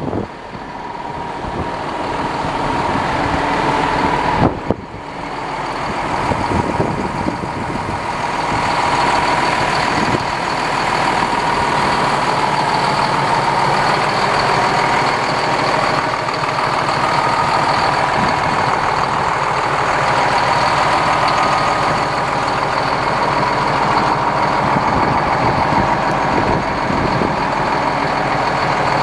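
2008 International 7600 plow truck's diesel engine idling steadily, with a steady whine over the rumble; the sound briefly drops out about five seconds in.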